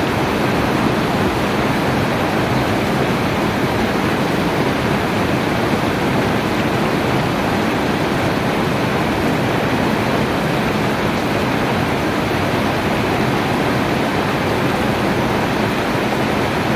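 Heavy rain falling steadily: a dense, even hiss of rainfall with no single drops or thunder standing out.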